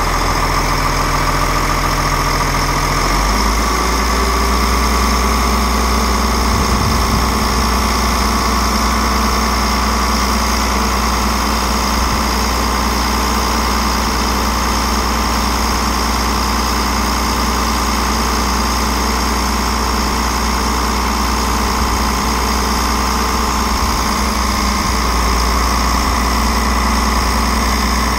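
Tractor engine idling steadily, its low note shifting slightly about three seconds in.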